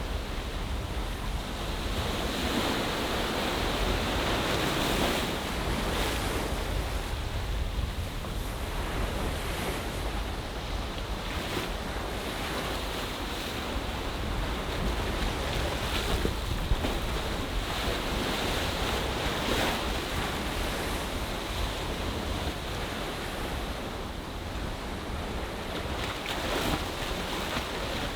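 Ocean waves washing into a bay, the surf swelling and easing every few seconds, with wind rumbling on the microphone.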